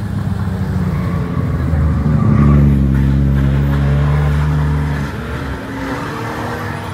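Toyota Supra's straight-six engine as the car drives past and away. The engine note holds steady and loud for a few seconds, then falls away about five seconds in.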